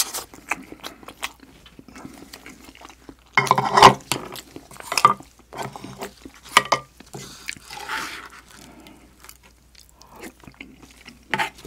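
Close-miked eating of spicy stir-fried octopus: chewing, slurping and wet mouth clicks, with a louder stretch of mouth noise about three and a half seconds in.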